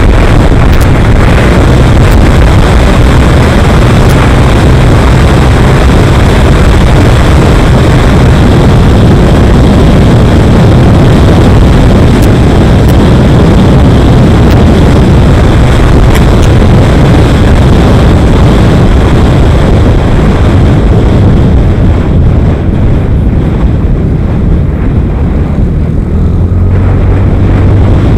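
Loud, steady rush of wind on the microphone over the rumble of a moving vehicle's engine and tyres on the road, easing a little in the last few seconds.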